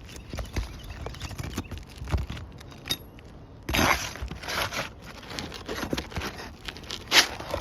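Flat bar prying and scraping under asphalt 3-tab roof shingles to break them loose and free a damaged shingle: scattered clicks and taps with a few short scraping rasps, the longest about four seconds in and another near the end.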